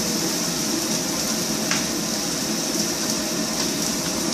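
Garlic and onions sizzling steadily in hot coconut oil in a pan, with a single light tap about a second and a half in.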